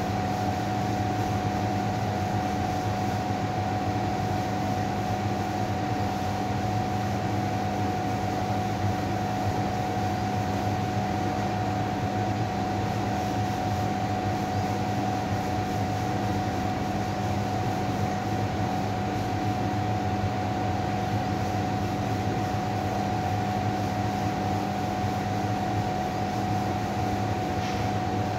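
Steady hum and hiss with a constant high-pitched tone, unchanging and without any breaks.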